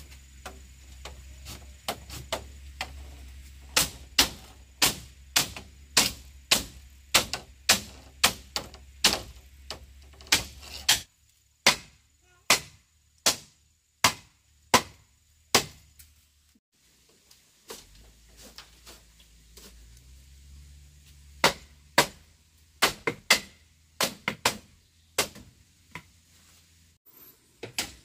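Repeated sharp blows of a hand tool during building work, about two a second. A long run of blows is followed by a pause and then a shorter run.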